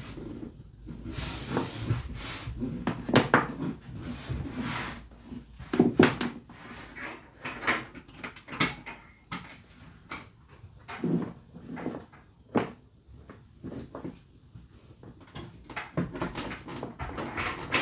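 Irregular knocks, clicks and rustling as things are handled and moved about in a small room, with a few louder sharp knocks.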